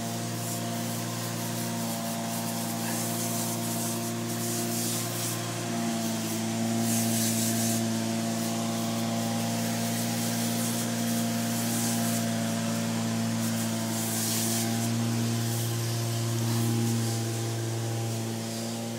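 A motor running with a steady, even hum, most likely the carpet-cleaning machine. Over it there is a hissing, rubbing noise that swells twice, about seven and fourteen seconds in.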